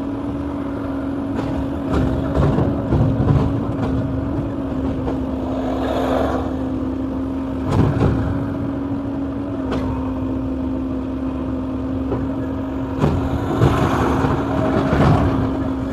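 Excavator's diesel engine running steadily, with louder spells as it works. Two sharp knocks from the machine come about eight and ten seconds in.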